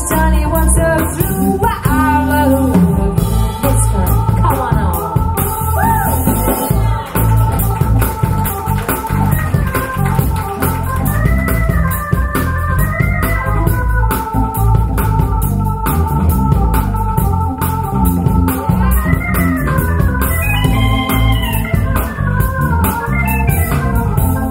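Music sound demo played through Paradigm Monitor SE Atom bookshelf speakers: sustained organ-like keyboard chords over a steady bass with a wavering melodic line, driven by an amplifier with its treble turned down to -4.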